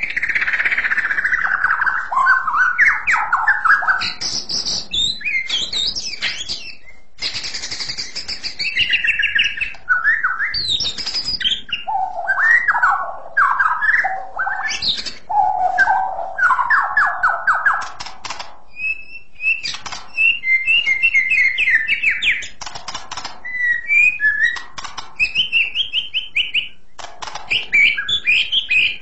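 White-rumped shama singing a long, varied song of clear whistled phrases. It opens with a falling whistle, moves into runs of rapid lower notes, and ends in bright, quick chattering notes, with brief pauses between phrases.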